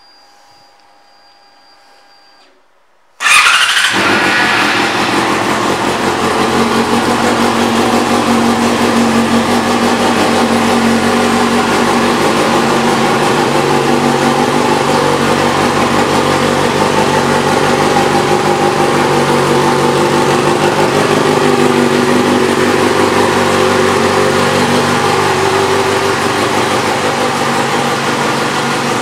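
Yamaha FZ6R's inline-four engine, fitted with an aftermarket exhaust, starting abruptly about three seconds in after a faint hum, then idling steadily.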